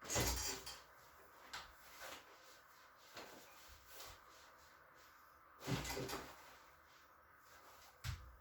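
A few short knocks and rustles of handling: a loud one at the start, another about six seconds in, and a sharp click near the end, with smaller ones between.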